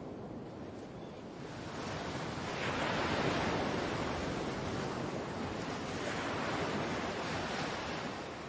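Ocean surf: waves washing in, swelling to a peak about three seconds in and again around seven seconds.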